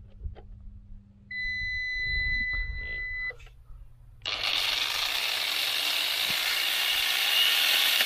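A computer UPS gives one long electronic beep of about two seconds, its warning after it stopped powering the angle grinder. About four seconds in, a steady, loud rushing noise starts.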